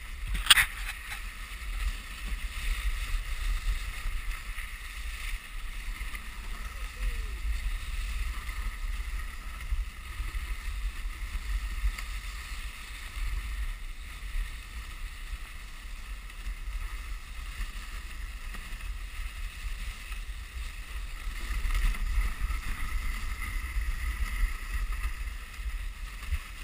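Dog sled gliding over a packed snow trail: a steady hiss of the runners on snow over a low rumble, with one sharp knock about half a second in.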